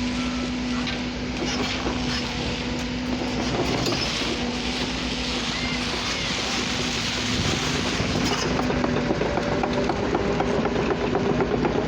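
Local train rolling past: a steady low drone with wheel and rail noise over it. The sound gets a little louder from about eight seconds in, and the low tone gives way to a higher one.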